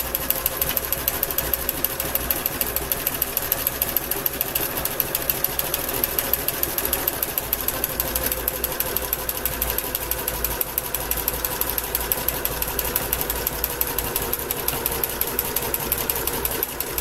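Kenmore entry-level household sewing machine running steadily, the needle stitching in a rapid, even rhythm over a steady motor hum. It is sewing along the edge of cross-stitch fabric to keep it from fraying.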